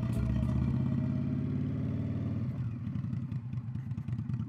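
Indian Scout Bobber's V-twin engine running at low speed. Its revs fall about halfway through and it settles into a slower, pulsing beat.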